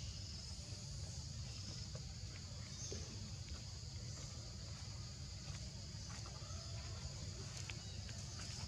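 Steady, high-pitched insect chorus in forest over a low, steady background rumble.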